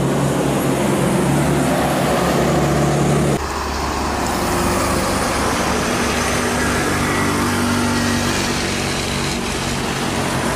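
Diesel bus engine running steadily as it passes on the road. About three seconds in, the sound cuts abruptly to two bare cab-chassis trucks driving past, their diesel engines humming over tyre and road noise.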